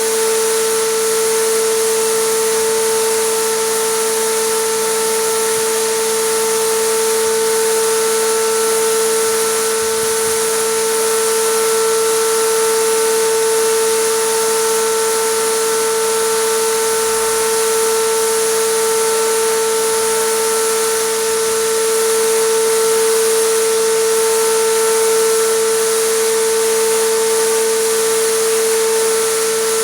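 Air compressor running steadily with a constant whine, and the even hiss of compressed air through a sprayer applying acrylic resin.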